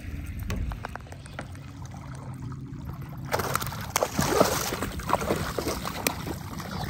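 A hooked fish thrashing and splashing at the water's surface, a burst of sloshing, crackling splashes that starts a little past three seconds in and lasts about three seconds.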